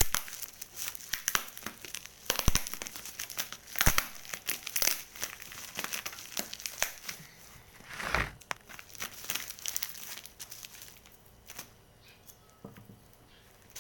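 Plastic parcel wrapping and bubble wrap being torn and crumpled by hand as the package is opened: irregular crackling and rustling, busiest in the first ten seconds and quieter near the end.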